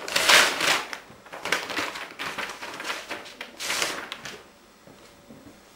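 A brown paper envelope being torn open, the loudest rip about half a second in, then paper rustling and crackling in several short bursts as sheets are pulled out; it stops about four and a half seconds in.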